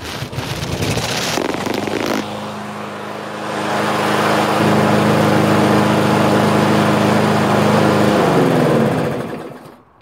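Snapper lawn mower's 140 cc Briggs & Stratton engine starting on a pull of the recoil cord after a shot of starting fluid: it catches roughly, runs steadily for several seconds, getting louder about four seconds in, then is shut off and winds down near the end.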